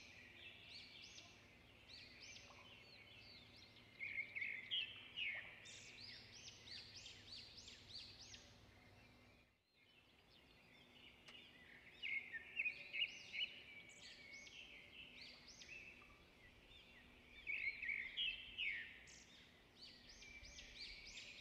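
Faint chirping and twittering of small songbirds in clusters of a few seconds with quieter gaps between, over a low steady hum; everything cuts out for a moment about ten seconds in.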